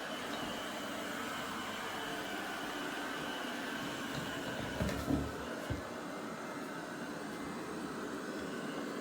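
eufy 11S Max robot vacuum running steadily, a low machine hum with hiss. A few soft low thumps come about halfway through.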